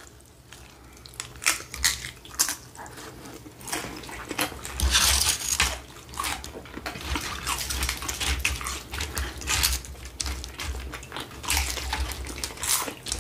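Chewing and crunching of tortilla chips in taco salad: irregular crisp crackles and clicks, with a denser run of crunching about five seconds in.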